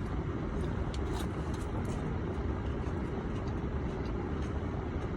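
Steady low rumble of background noise heard inside a parked car's cabin, with a few faint clicks about one and two seconds in.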